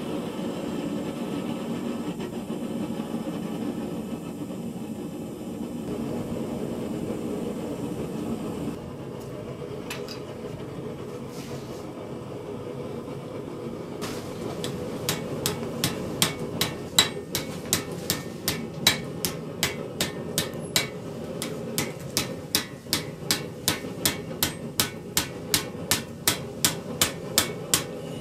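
Hammer striking a steel acanthus leaf being worked repoussé over a stake. A steady low rushing noise fills the first several seconds. About halfway in, sharp, evenly spaced blows begin at roughly two to three a second and keep going.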